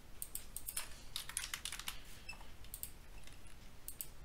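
Computer keyboard and mouse clicking, faint: a quick run of key taps from about a second in, then a few scattered clicks.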